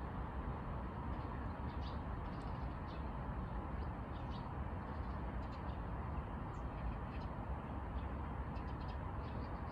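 Outdoor background: a steady low rumble with many short, faint high chirps of small birds scattered through.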